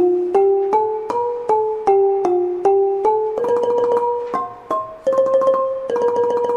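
Keyboard music with a piano-like tone: a simple melody of struck notes doubled in octaves, about three notes a second. A quicker, glittering accompaniment joins a little past halfway.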